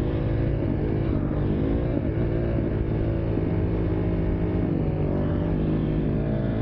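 KTM dirt bike engine running at fairly steady revs while the rider holds a wheelie, the pitch wavering slightly with small throttle changes.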